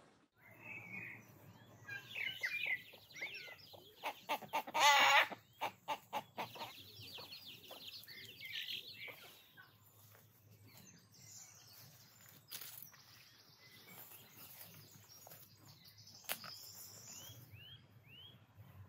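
Chickens clucking, with one loud call about five seconds in, and small birds chirping.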